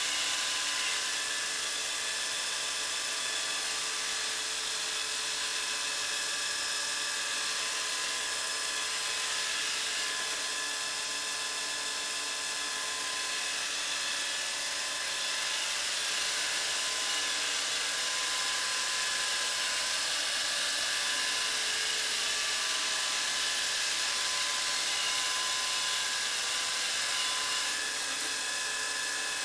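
Samsung robot vacuum cleaner running steadily, a continuous motor whine over the hiss of its suction.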